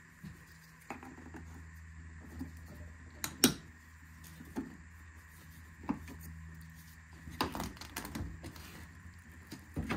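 Scattered clicks and knocks of hard plastic car parts being handled and fitted, with one sharp click about three and a half seconds in and a cluster of knocks near the end, over a low steady hum.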